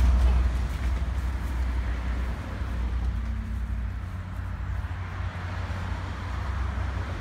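Low, steady outdoor rumble with no distinct event, fading slightly after the first second.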